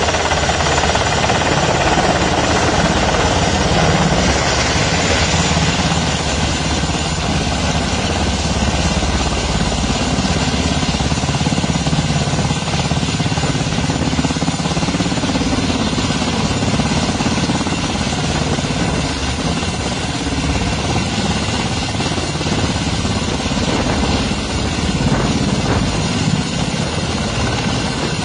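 UH-60 Black Hawk helicopter hovering close by in a pinnacle landing, its main rotor chopping rapidly over the steady whine of its turbine engines, loud and unbroken.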